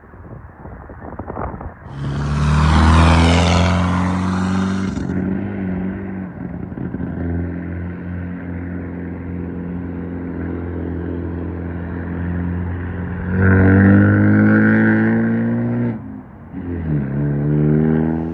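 Car engine running as a vehicle drives through flood water, with a loud rush of spray from about two to five seconds in. The engine note swells again later and rises in pitch near the end.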